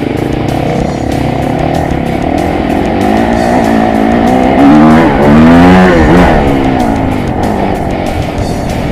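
Enduro motorcycle engines under way on a dirt trail, revving up and down. They are loudest a little past the middle, where the pitch swings quickly up and down as the throttle is worked.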